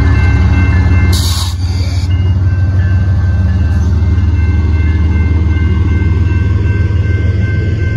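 BNSF diesel locomotive passing close by, then the rock train's freight cars rolling behind it, with a steady low engine drone throughout. A brief rush of noise comes about a second in.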